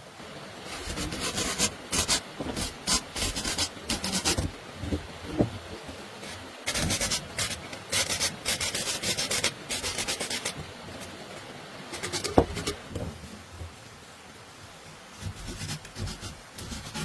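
Rapid scraping strokes, like a blade or tool rasping against a hard surface, in two runs of about four seconds each. A single sharp knock comes about twelve seconds in, and a few more strokes follow near the end.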